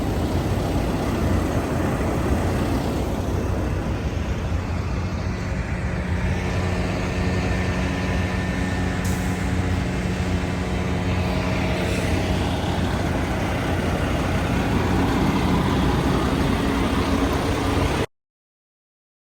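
Truck engine running steadily while driving, with a constant rumble of engine and road noise and a steady engine tone. The sound cuts off abruptly to silence near the end.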